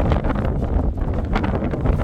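Strong wind gusting across the microphone, a loud low buffeting.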